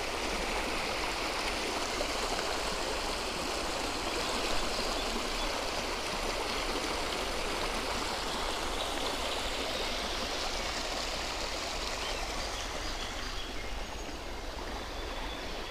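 Steady rushing noise of riding a road bike: wind on the action camera's microphone and tyres rolling on asphalt, easing slightly near the end.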